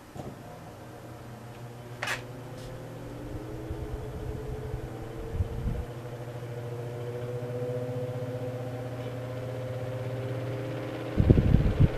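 Catalina table fan motor humming as it slowly comes up to speed, its tones climbing gradually in pitch and getting louder, a sluggish start that happens whenever it has been left off for a long time. A click about two seconds in; near the end, loud buffeting suddenly starts as the fan's air hits the microphone.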